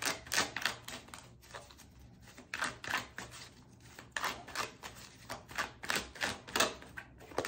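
Tarot cards being handled and drawn from the deck: a run of light, irregular clicks and taps, about three a second.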